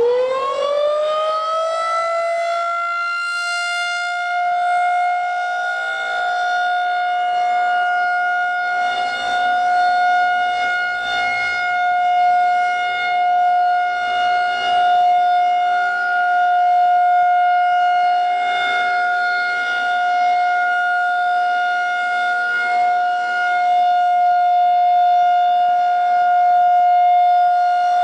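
Federal Signal 2001-130 rotating outdoor warning siren sounding its weekly test. It finishes winding up, its pitch rising over the first couple of seconds, then holds one steady tone at full speed, its loudness swelling and dipping a little.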